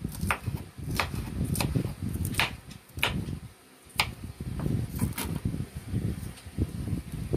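Kitchen knife chopping green chile pepper on a wooden cutting board: sharp knocks, irregular, roughly one every half second to second, with a brief pause about three and a half seconds in. The chopping ends a little after five seconds in.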